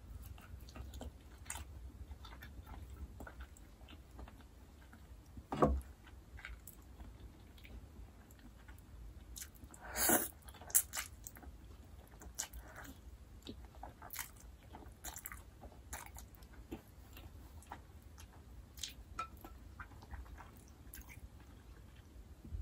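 A person chewing and slurping vegan jajangmyeon noodles close to the microphone: soft wet chewing and small mouth clicks throughout, with two louder slurps about six and ten seconds in.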